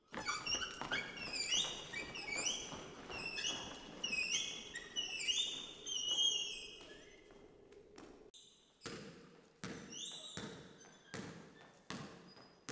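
Sneaker soles squeaking on a hardwood gym floor in quick, overlapping chirps. About eight seconds in, a basketball starts bouncing, a string of separate thuds, each with a short ring.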